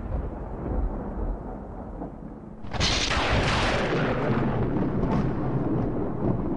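Cinematic intro sound effect: a low rumble, then nearly three seconds in a sudden loud boom-like burst whose hiss fades while a deep rumble carries on.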